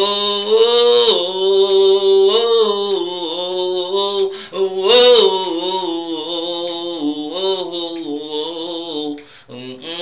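A man singing unaccompanied, holding long drawn-out notes that bend and slide up and down in pitch, with no clear words.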